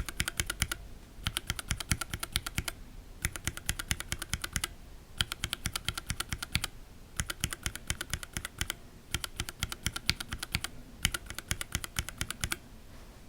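Gateron Linjar linear mechanical keyboard switches pressed rapidly, clacking in seven bursts of a second or so with short pauses between. It is a sound test of a switch fitted with a TX switch film against an unfilmed one, and any difference is very subtle.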